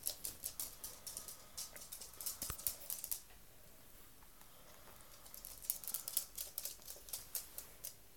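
Rapid light ticking of a chihuahua's claws on a wooden floor as it moves about, in two runs with a pause of about two seconds between and a single sharper knock about two and a half seconds in.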